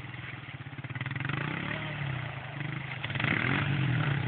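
ATV engines running under load in mud and water, with the engine note swelling about a second in and again louder around three seconds in.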